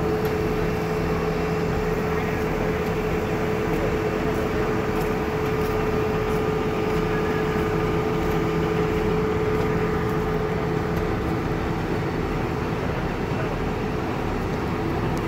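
Fire engine running steadily at a fire scene: a continuous engine drone with a humming tone that fades away about eleven seconds in.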